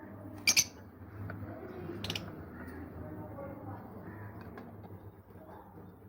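Lovebirds calling: a loud, sharp, harsh double call about half a second in and another about two seconds in, with fainter softer sounds and a steady low hum between them.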